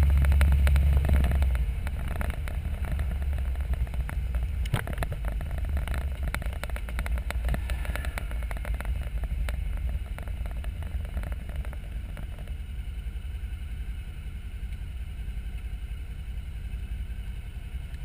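Motorcycle engine running with road and wind noise on the onboard camera, loudest at first and easing off as the bike slows. It settles to a quieter, steady rumble for the last few seconds as the bike stops behind a car.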